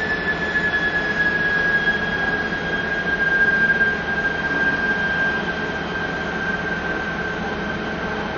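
SNCF CC 72000 diesel locomotive creeping into the station at the head of a coach train, its engine running with a steady high whine that sinks slowly in pitch.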